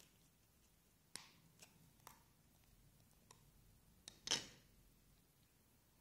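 Small plastic clicks and taps as the battery cover of a Sony Ericsson C702 mobile phone is worked loose and taken off, a handful of light clicks and then one louder plastic knock about four seconds in.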